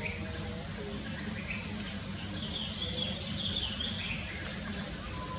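Outdoor ambience: a steady low rumble, with a run of high, warbling chirping calls about two and a half seconds in that lasts just over a second.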